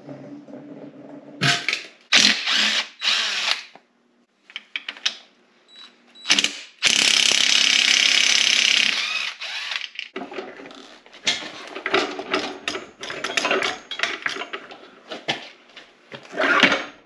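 Cordless DeWalt drill with a socket extension spinning out the transmission-to-engine bellhousing bolts in short bursts, the longest a steady run of about two seconds, among clanks and rattles of tools and metal parts.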